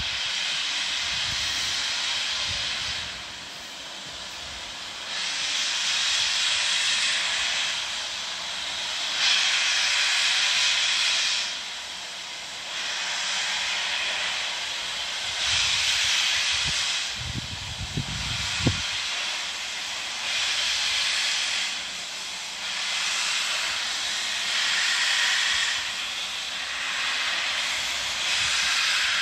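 BR Standard Class 4 2-6-4 tank locomotive 80104 hissing steam, in long swells of two to three seconds with short dips between. A brief low rumble and a sharp click come about eighteen seconds in.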